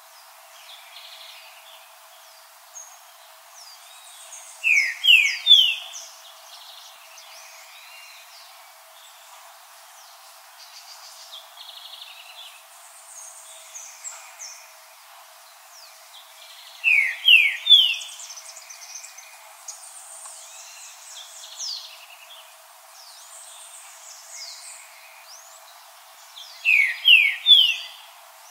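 Green-winged saltator singing: a short phrase of three quick rising whistled notes, given three times about ten seconds apart. Fainter high chirps and trills fill the gaps between phrases.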